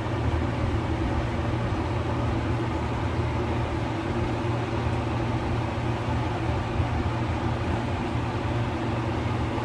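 Steady low machine hum that holds at the same level throughout.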